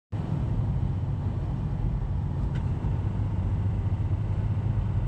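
2003 Toyota Celica GT's 1.8-litre four-cylinder engine running while driving at about 3,000 rpm, a steady low drone with road noise. The owner is recording it to show an engine knock under acceleration.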